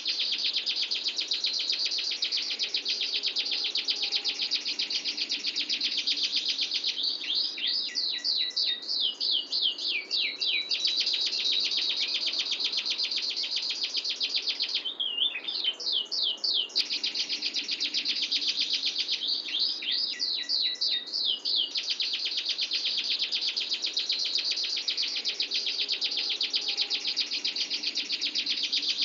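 Domestic canary singing a long rolling song (ngerol): fast, tight trills held for several seconds at a time, broken every few seconds by short runs of quick sweeping whistled notes.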